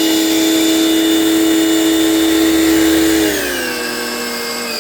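Cheap AliExpress portable high-pressure washer, modified with a voltage regulator, running close to the microphone: a loud, steady motor hum that drops to a lower pitch a little over three seconds in.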